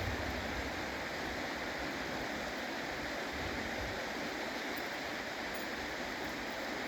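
Steady rushing of flowing river or stream water, an even hiss with no breaks.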